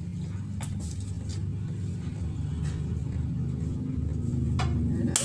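Steady low rumble with a few faint light clicks, as of spice shakers being handled over a steel bowl.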